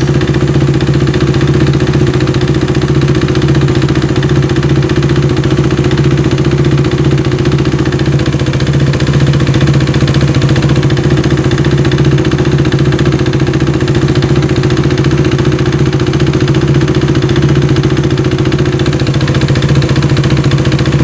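Fuel-injected motorcycle engine idling steadily while it warms up.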